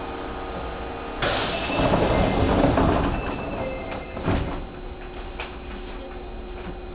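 Shin-20 series subway car doors sliding shut: a sudden rush of noise about a second in, then a knock as the doors close about four seconds in.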